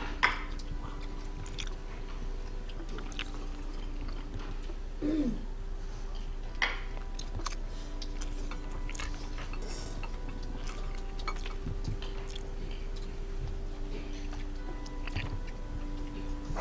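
Forks clinking on plates and people chewing at a meal, over soft background music with long held notes.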